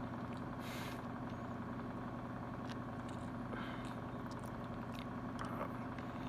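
Steady low mechanical hum, like an idling engine, with a few faint clicks and a brief breathy hiss just under a second in.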